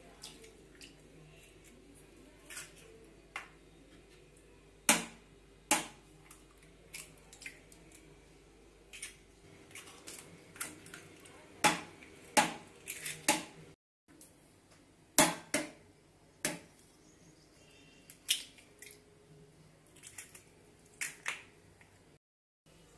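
Eggs rapped against the rim of a steel mixer-grinder jar to crack them open: sharp clicks, often in pairs, repeated egg after egg.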